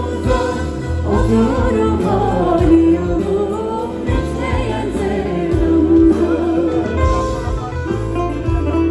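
Live band playing Black Sea (Karadeniz) style music through stage speakers, with a lead vocal singing a wavering melody over a steady bass beat.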